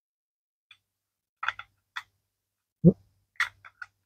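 Metal clicks and a low knock as the magazine of a Type 14 Nambu pistol is handled and slid into the grip: a few light clicks, one louder dull knock about three seconds in, then three quick clicks near the end.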